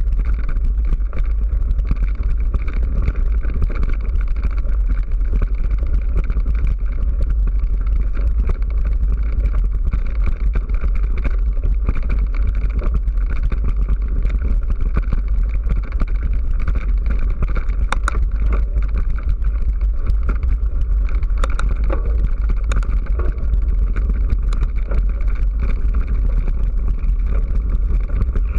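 Mountain bike rolling over a loose stony gravel track, heard through an action camera's microphone as a steady heavy rumble of wind and riding vibration with the crunch and rattle of tyres on stones. A few sharper clicks and knocks come in the second half.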